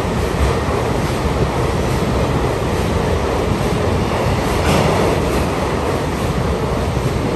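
Steady rushing noise over a low rumble from a JR West electric multiple-unit train standing at the platform, with wind buffeting the microphone. There is a brief hissy swell a little after halfway.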